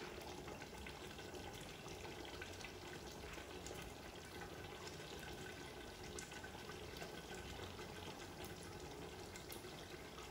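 Faint, steady bubbling of green chicken curry gravy simmering at a boil in an aluminium pot, with small scattered pops.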